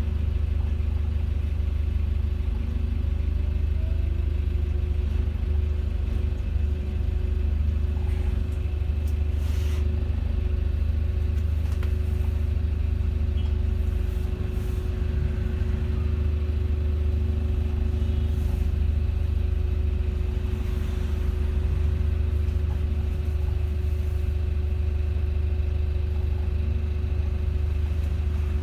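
Volvo B5LH hybrid double-decker bus heard from inside on the move: a steady low rumble with a constant whine over it, and a few faint rattles.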